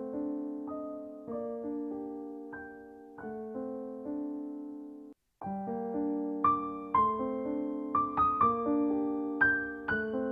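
Background piano music: slow chords struck and left to ring out. It breaks off for a moment about five seconds in, then resumes with busier, higher notes.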